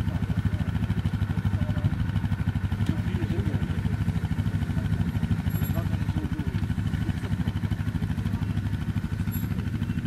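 Quad bike (ATV) engine running steadily at low revs with a fast, even pulse, as the quad crawls slowly uphill through long grass.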